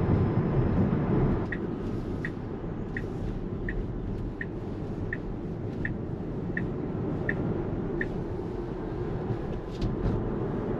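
Tyre and road noise inside the cabin of a Tesla Model Y, with a short high electronic tick repeating about every 0.7 seconds for several seconds from about a second and a half in: the turn-signal indicator.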